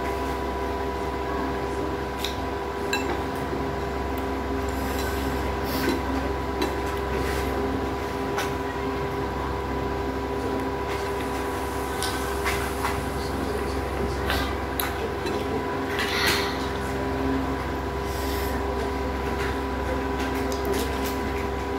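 A steady mechanical hum with several fixed tones runs throughout, with scattered light clicks and clinks of a spoon and bowl and soft eating sounds as someone eats at a table.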